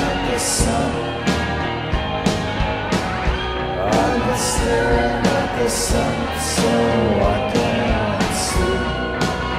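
Live band music: a singing voice over guitar, with a steady drum beat and repeated cymbal crashes.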